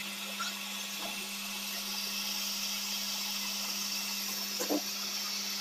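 Metal lathe running with a steady hum as it spins a motorcycle fork part in its chuck; a higher hiss grows about two seconds in, and there is a brief knock near the end.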